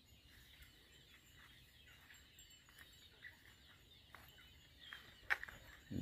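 Faint outdoor ambience with a few scattered bird chirps, and one sharp click about five seconds in.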